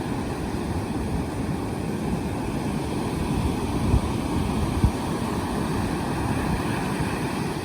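Steady rumble of wind on the microphone over surf breaking on the beach, with two brief thumps about four and five seconds in.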